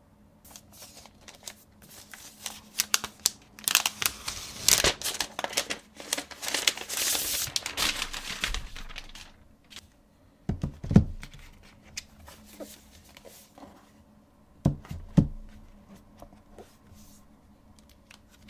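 Packaging wrap being pulled off and handled, a dense crinkling rustle with sharp crackles that dies away about nine seconds in. Then a couple of dull knocks as the laptop is handled on the desk.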